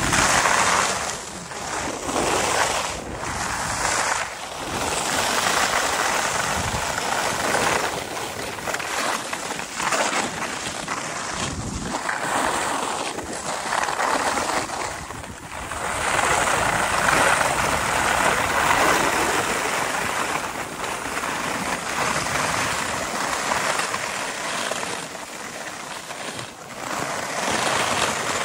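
Skis sliding and scraping over snow, swelling and fading every second or two with the turns, with wind rushing over the microphone.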